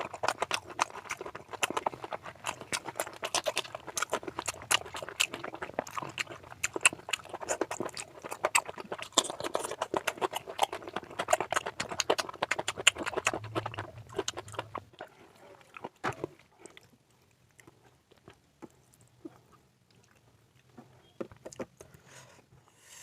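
Close-miked chewing of mutton fat curry and rice: dense, quick mouth clicks for about fifteen seconds, then only now and then.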